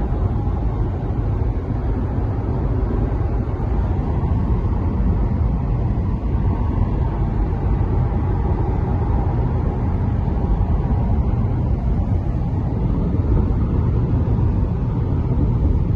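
Steady road noise inside a moving car's cabin: a low, even rumble of tyres and engine with wind, unchanging throughout.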